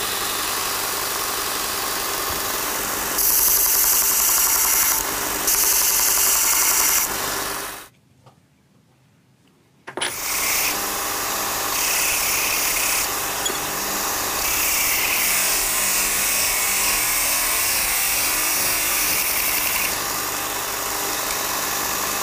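Robert Sorby Pro Edge belt grinder running with a steady motor hum, while a forged-steel chisel is pressed end-on to the belt in several bouts of louder, hissing grinding as its off-square end is ground flat at 90 degrees. The sound drops out for about two seconds partway through.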